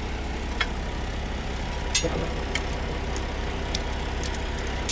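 A vehicle engine idling steadily, with a few light clicks of metal tire tools being handled.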